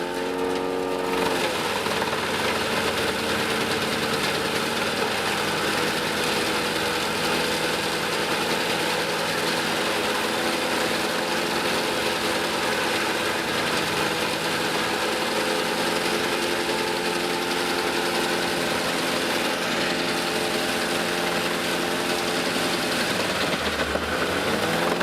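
Large tractor-driven wood chipper, a Gandini chipper powered by a Claas Xerion tractor, running with a steady engine note. The pitch shifts just after the start and again near the end.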